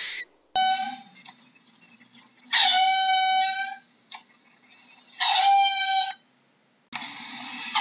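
Four drawn-out animal calls, each held on one steady high note, the first brief and the rest about a second long, presented as a mongoose's call.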